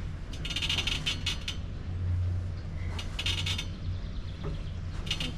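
Pulling gear of a hand-pulled ferry clinking and creaking in three short bursts, one with each pull on the line.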